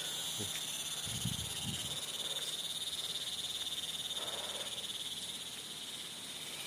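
Insects trilling in a steady, high-pitched chorus with a fast, even pulse. A few soft low thumps sound about a second in.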